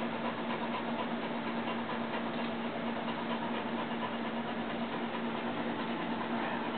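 Electric grooming clippers running steadily with a constant hum, used on an English Setter's coat.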